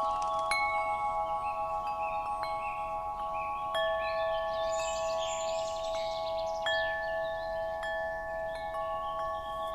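Wind chime ringing: several chime tones sustain together in a steady blend, and a fresh strike every second or two adds a new, higher note.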